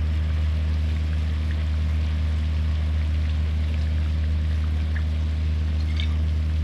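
A steady low hum runs under faint sizzling and crackling from pork ribs cooking in a pan with soy sauce.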